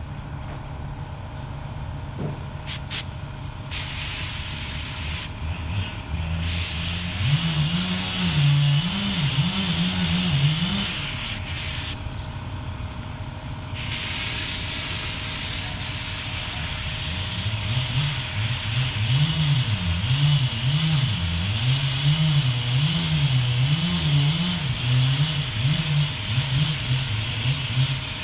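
Gravity-feed spray gun hissing as it sprays primer onto a car's repaired body panels, in long passes that start about four seconds in with two short breaks. A low hum that wavers in pitch runs underneath.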